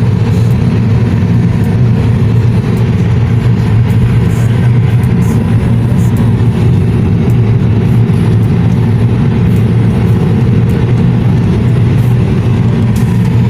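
Steady engine and road rumble of a moving vehicle, heard from inside it, with no change in speed.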